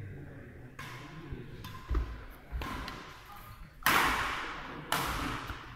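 Badminton rally: light racket hits on the shuttlecock and thuds of feet on the court, then two loud sudden noises about four and five seconds in, each dying away over about a second.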